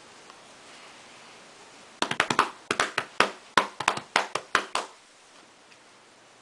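Hands patting a cat's flank and back like bongos: a quick, uneven run of sharp slaps, about six a second, starting about two seconds in and stopping near the five-second mark.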